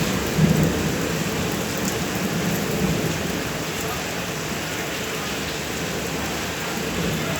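Steady rain falling during a thunderstorm, with low rumbles of thunder in the first few seconds.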